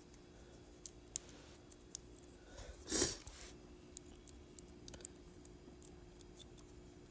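Scattered light clicks and ticks of a small folding metal can opener being handled and turned in the fingers, with a brief louder rush of noise about three seconds in. A faint steady hum runs underneath.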